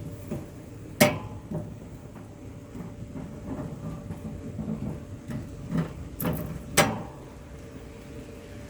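Sharp knocks and clatter of cooking tools against a cast-iron grill. The loudest knock comes about a second in, with two more near the end and lighter clatter in between.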